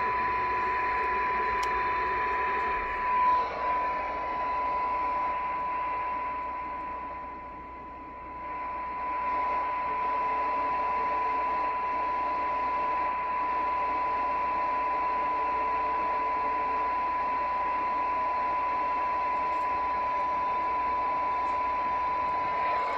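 Tram D-80 CB radio's speaker playing a steady 1 kHz test tone from a signal generator over receiver hiss, during SINAD receive alignment. The hiss level against the tone is what the SINAD reading measures. The sound swells briefly about three seconds in and dips for a moment around eight seconds.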